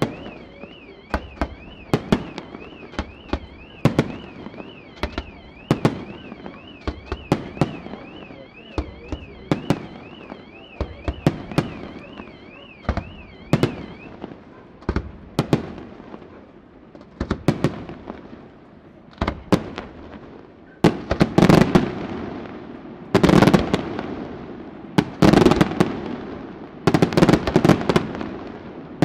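Aerial firework shells bursting: sharp single bangs about once a second, then from about two-thirds of the way through, louder, denser volleys of bangs and crackle roughly every two seconds. A warbling alarm-like tone rises and falls over the first half.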